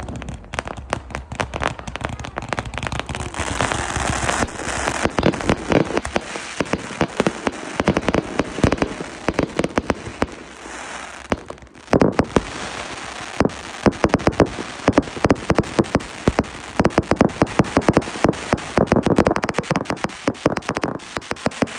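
Fireworks display: shells bursting and crackling in a dense, rapid stream of pops and bangs, with one louder bang about halfway through.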